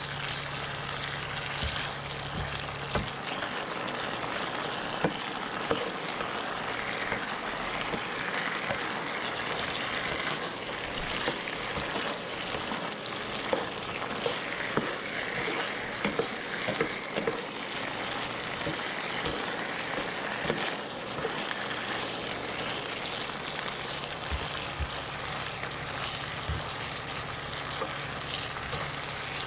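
Thick sweet Coca-Cola sauce with tilapia fillets sizzling and bubbling in a nonstick frying pan, while a nylon spatula stirs through it, with scattered light taps and scrapes against the pan.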